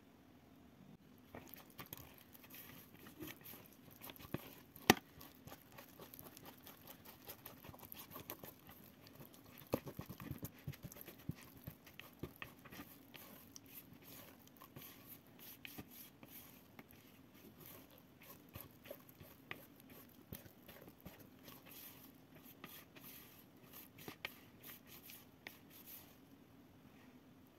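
Silicone spatula stirring and folding sticky wet bread dough in a plastic mixing bowl: soft squelching and scraping with many small irregular clicks, and one sharp click about five seconds in.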